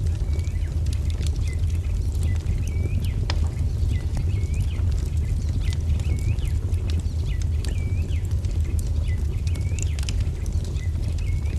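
A wood fire crackling with scattered sharp pops over a steady low rumble, while a songbird gives short, hooked chirps more than once a second.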